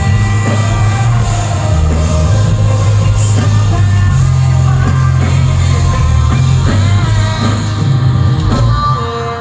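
Live heavy rock band playing, with distorted guitars, bass and drums under a sung lead vocal, recorded loud from the crowd. The music drops slightly in level near the end.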